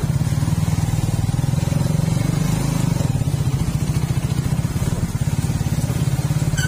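Suzuki Raider 150 Fi motorcycle's single-cylinder four-stroke engine running steadily while it is ridden along a rough dirt track.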